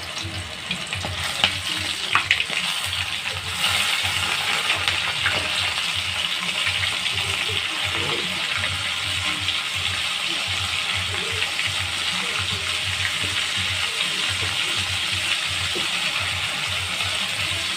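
Floured squid rings deep-frying in very hot oil: a dense, steady sizzle and crackle with a few sharp pops at first. It grows louder about three and a half seconds in.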